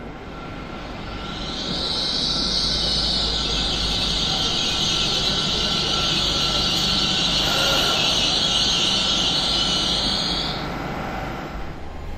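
Hitachi Class 802 bi-mode train passing close by on its underfloor diesel engines, not on the overhead wires. It builds over the first two seconds into a loud, steady high hissing whine over a low rumble. The whine cuts off about a second before the end as the train goes by.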